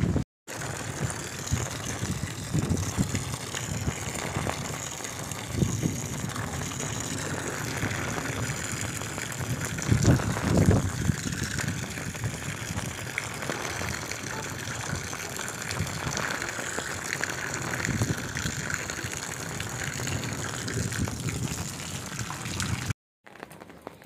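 Heavy rain falling on a wet concrete yard, splashing into puddles and standing water with a steady hiss and a few louder spatters. The sound cuts out for a moment shortly after the start and again near the end.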